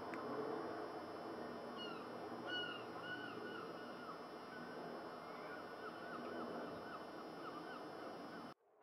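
Bird calls: short arched cries from about two seconds in, turning into a quick run of repeated cries later, over a steady rushing background noise. The sound cuts out abruptly just before the end.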